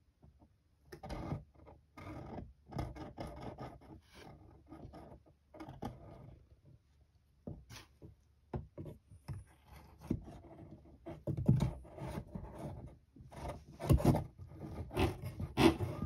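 Irregular scraping and rustling of a stiff paper strip toy being wiggled against a wooden board, in bursts that grow louder and busier in the second half.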